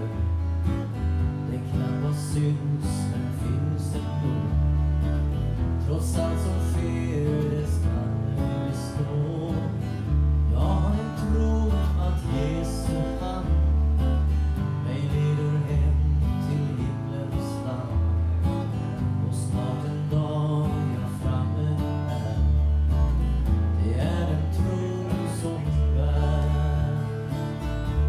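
Live acoustic guitar strumming over an electric bass guitar line, the bass notes changing about every second.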